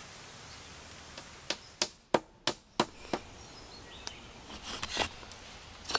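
Wood being chopped with a blade: six sharp strikes in quick succession, about a third of a second apart, starting about a second and a half in, over a steady outdoor hiss.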